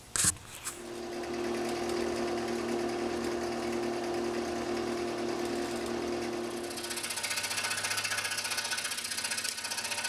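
A couple of sharp clicks, then a drill press motor running steadily with a small bit cutting into a workpiece. At about seven seconds a scroll saw takes over, with the fast, even chatter of its reciprocating blade.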